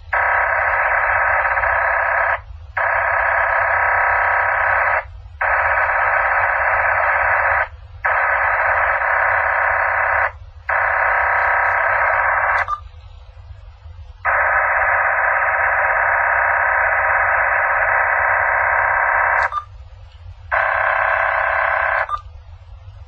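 Radio scanner speaker putting out a horrible, harsh noise picked up on UHF channels: a steady buzz of many fixed tones at once. It comes in blocks of two to three seconds with brief breaks between, and longer gaps about halfway through and near the end.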